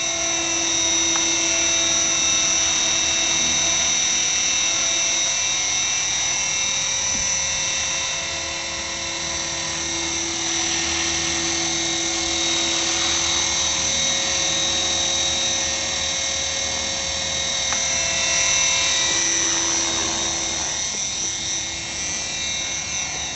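Align T-Rex 450 SE electric RC helicopter in flight: a high-pitched whine from the brushless motor and gears over the whir of the spinning rotor blades. It shifts in pitch and loudness a couple of times as the helicopter manoeuvres.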